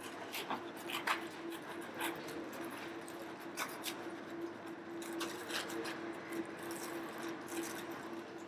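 A steady machine hum holding one pitch, with scattered light clicks and clatter over it.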